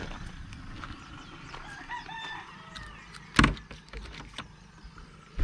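A rooster crowing about two seconds in, followed by a loud sharp clack a second or so later and another at the very end.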